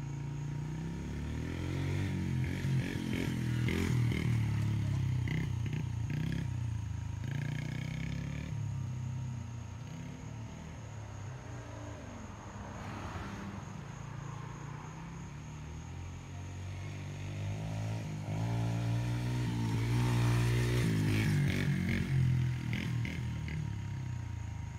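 Small dirt bike engine running as it is ridden around, the pitch rising and falling with the throttle. It grows loudest about four seconds in and again around twenty seconds in as the bike passes close.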